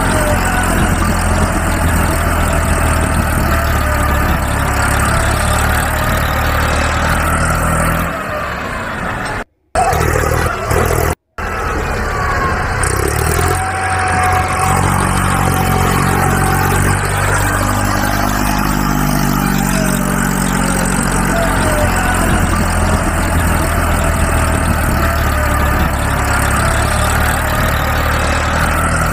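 A heavy vehicle's engine running steadily, its pitch shifting up and down partway through. It cuts out briefly twice, about nine and eleven seconds in.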